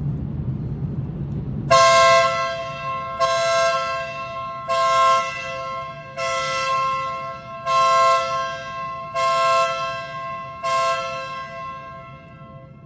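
Stebel Nautilus compressor-fed air horn sounding seven short blasts, starting about two seconds in and repeating about every one and a half seconds. Each blast is a loud, bright, multi-note blare that cuts in sharply and rings away before the next. A low steady rumble runs underneath.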